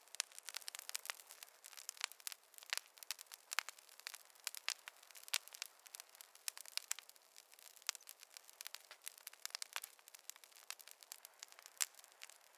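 Wood fire crackling: dense, irregular sharp pops and snaps over a faint hiss, with no low rumble.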